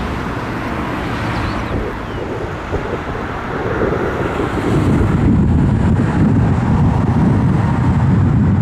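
Low rumble of McDonnell Douglas MD-82 airliners' Pratt & Whitney JT8D jet engines under heavy wind buffeting on the microphone. It gets louder about five seconds in.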